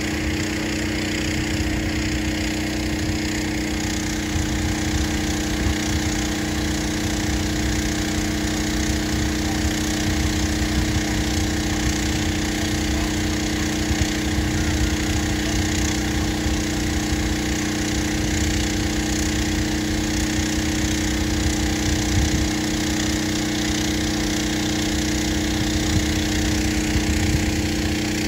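A steady machine hum holding two unchanging pitches, with an uneven low rumble of wind buffeting the microphone.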